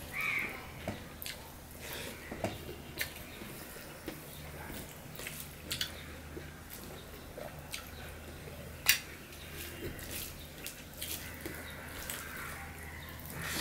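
Eating sounds: wet mouth clicks and chewing, with scattered clicks of fingers mixing rice against a steel plate. One click about nine seconds in is louder than the rest. A steady low hum runs underneath.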